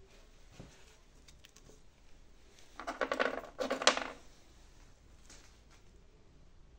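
A few faint clicks, then about a second of clattering from small hard objects knocking together, about three seconds in.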